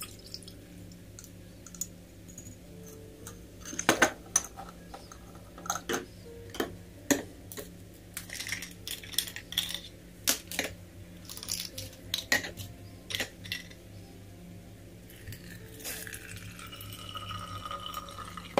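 Glass jars, a glass bottle and a small metal sieve clinking and tapping on a tabletop as they are handled, with a dozen or so sharp knocks. Near the end, liquid pours steadily from a jar into a narrow glass bottle.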